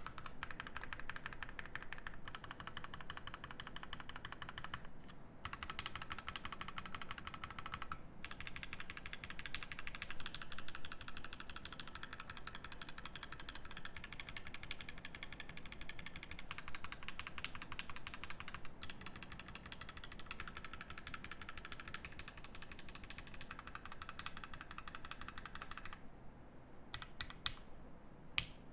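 Continuous fast typing on a Matrix Noah mechanical keyboard with lubed H1 switches, an aluminium plate and DCS Sleeper keycaps: a dense stream of keystrokes that stops about 26 seconds in, leaving only a few single keystrokes.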